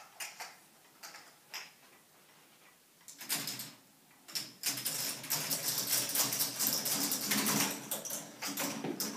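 A few light clicks, then from about three seconds in a long, dense clatter of balls rattling and clicking down through the K'Nex binary calculating machine's plastic lattice as it works out 2 × 7.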